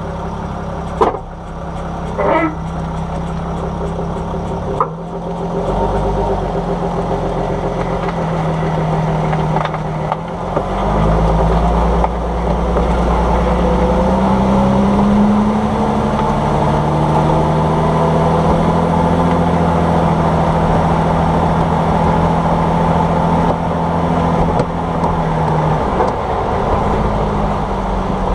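Vehicle driving over the road, engine and road noise heard from close to a shock absorber, the engine pitch rising and falling. A few sharp knocks come in the first ten seconds, the suspension clunk being tracked down.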